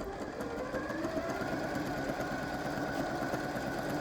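Janome M100 QDC computerised sewing machine started with its start/stop button, picking up speed over the first second and then stitching steadily at an even speed.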